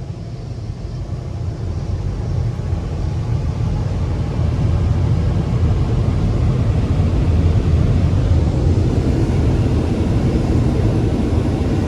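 Car wash blower dryers running, a steady rushing roar that swells over the first few seconds as they spin up, then holds level.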